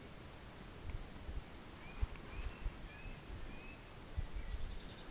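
Quiet lakeside outdoor ambience: a bird gives a short series of about four whistled notes, each rising then falling, midway through. Low thumps on the microphone sound now and then.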